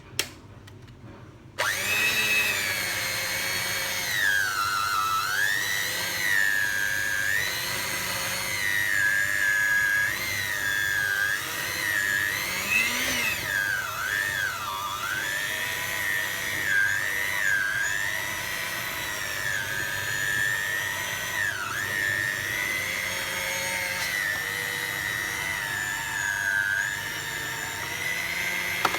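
A small electric motor starts suddenly and runs with a high whine whose pitch keeps dipping and recovering, as if its load changes.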